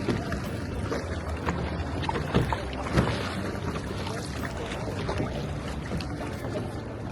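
Kayaking on open river water: paddle strokes and water splashing and lapping against the kayak, with wind rumbling on the microphone. Two sharper knocks come about two and a half and three seconds in.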